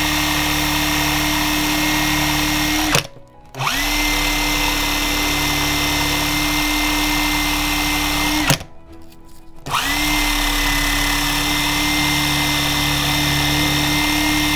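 Cordless drill spinning a Star Adventurer clutch plate on a drill adapter while 320-grit sandpaper is held against the plate to smooth it. The drill runs at a steady pitch, stops briefly about three seconds in and again near nine seconds, and each time spins back up with a quick rise in pitch.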